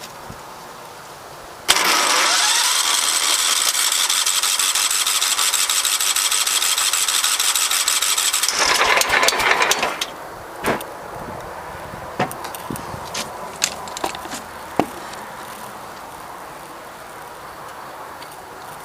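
17.5 HP Kohler engine turned over by its electric starter for about eight seconds, cranking fast and even without ever catching, then cut off; a few clicks and knocks follow. The free, fast cranking fits the no-compression fault the owner's tags point to.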